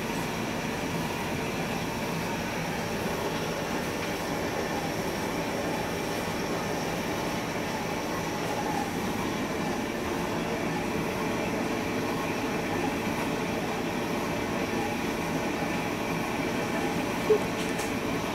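A steady mechanical hum with a few faint whining tones in it, even throughout; a single short knock comes near the end.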